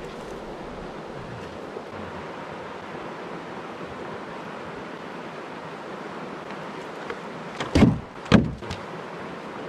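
Steady rush of a shallow creek flowing over rocks. Near the end, two loud knocks about half a second apart as a paddle and gear are set into the canoe.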